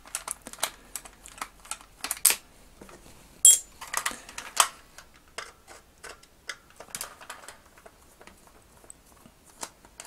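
Screwdriver turning screws out of a hard plastic toy body: small irregular clicks and ticks of the blade in the screw heads and the plastic shell being handled. One sharper click with a brief ring about three and a half seconds in.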